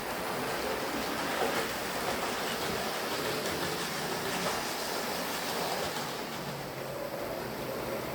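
Hornby OO gauge Battle of Britain class model steam locomotive running along the track: a steady whirr and rumble from its motor and wheels.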